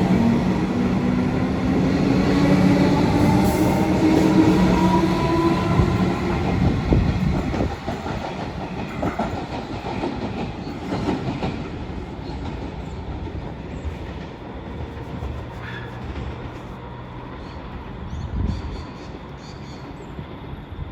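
Passenger train pulling away, the whine of its motors rising in pitch over the first few seconds. Then the wheels clack over the rail joints as it fades into the distance.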